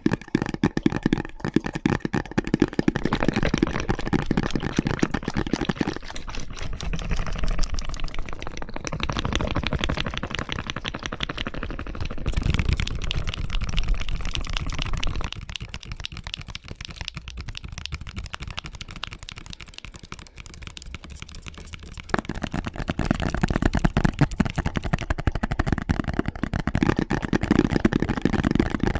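Rapid ASMR tapping, fingernails and fingertips drumming on objects, in layered overlapping takes. The tapping texture shifts to a different surface several times, about 6, 12, 15 and 22 seconds in.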